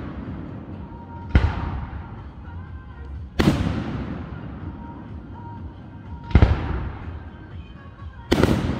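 Aerial firework shells bursting overhead: four sharp booms about two to three seconds apart, each trailing off in a long fading echo.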